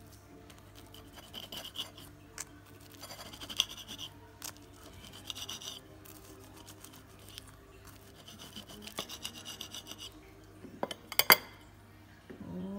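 Serrated knife sawing through the crisp, sugar-crusted pastry of a pineapple pie in several rasping strokes, with a few sharp clicks near the end.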